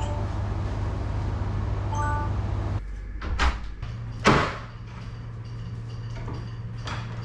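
A short chiming jingle over a steady low hum that cuts off suddenly about three seconds in, followed by a few short sudden swishing or knocking sounds, the loudest about four seconds in.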